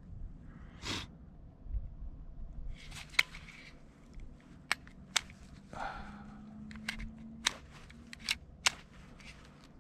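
Glock 44 .22 pistol being handled to clear a failure to feed: about ten sharp metallic clicks at irregular intervals, with some soft rustling in between.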